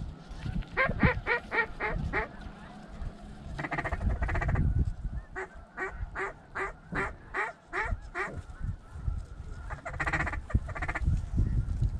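Strings of short, rapid snow goose honks, about four a second: a short run about a second in and a longer run of about ten calls from five to eight seconds in. A rush of noise comes near the four-second mark and another near the end.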